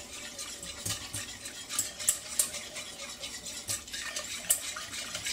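A whisk stirring milk into a butter-and-flour roux in a stainless steel saucepan, clicking and scraping against the pan's sides in a quick, uneven run of taps. This is the start of a white sauce (béchamel), with the milk just added.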